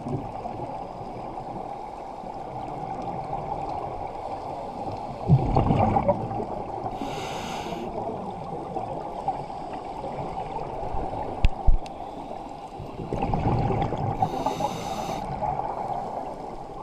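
Scuba regulator breathing heard underwater: a bubbling exhale about five seconds in, a hissing inhale about seven seconds in, then another exhale and inhale from about thirteen seconds, over a steady underwater hum. A couple of small knocks come near twelve seconds.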